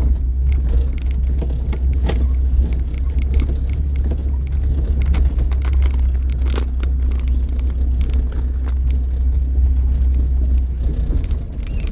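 Car driving slowly on an unpaved dirt road, heard from inside the cabin: a steady low rumble of engine and tyres, with scattered light clicks and knocks from the rough surface.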